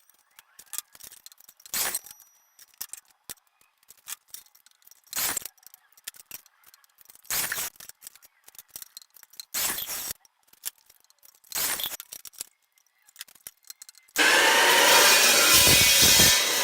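A saw cutting 1-inch square steel tubing in short bursts about every two seconds, with small clicks and knocks in between. Near the end comes one longer, louder cut of about two seconds.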